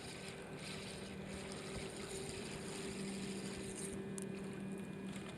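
Faint, steady low hum of a motorboat engine, over a light hiss.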